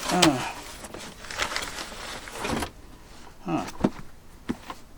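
Packaging crinkling and rustling as a mini air conditioner is handled out of its box, with a couple of sharp knocks near the end.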